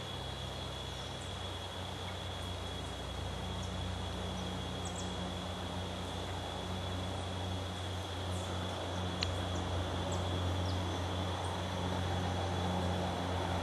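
Rainforest ambience: a steady high-pitched insect drone with scattered faint bird chirps, over a steady low hum that grows a little louder toward the end.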